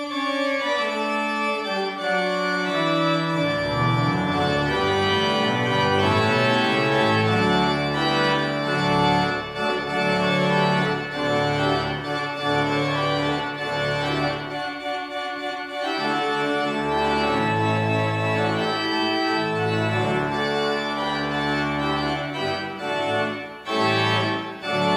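Pipe organ playing sustained chords, a line falling in pitch over the first few seconds, with deep pedal bass notes coming in about three seconds in.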